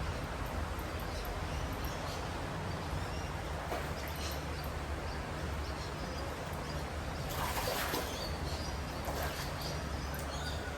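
Outdoor ambience: a steady low hum with faint bird chirps, and a brief louder rush of noise about two-thirds of the way through.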